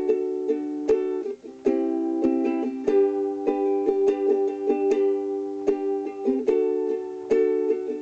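Ukulele strummed in a steady pattern through the G, D, C, G chord progression, a few strums a second, with the chord changing a few times.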